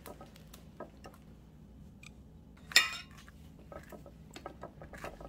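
Tableware on a table: scattered light clicks and taps of plates and utensils, with one sharp ringing clink a little before halfway.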